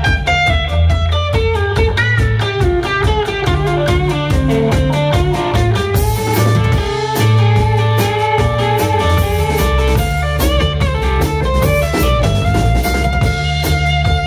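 A live rock band playing an instrumental passage on electric guitars, bass and drum kit. A busy lead line of fast single notes and sliding notes runs over the beat.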